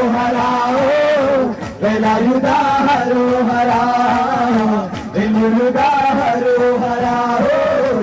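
Men singing a Malayalam folk-style song through microphones and a PA, a chant-like melody of long held notes with short breaks between phrases.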